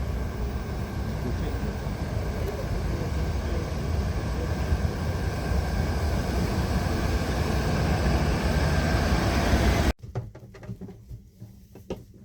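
Passenger train running with a steady deep rumble and hiss. It cuts off abruptly about ten seconds in, leaving a quiet room with a few light clicks.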